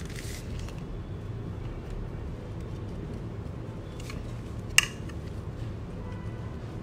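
Steady low hum with a few light clicks of small hard objects being handled on a resin tray; the sharpest click comes just under five seconds in.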